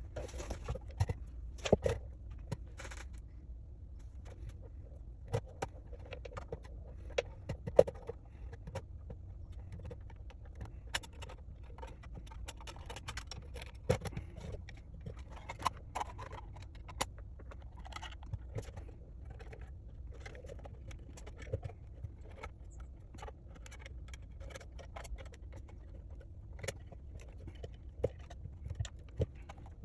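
Irregular small clicks, taps and scrapes of hands handling small 3D-printed plastic parts and screws during assembly, over a low steady hum.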